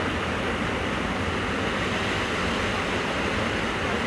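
Steady rush of water pouring down over a rock ledge in a small cascade.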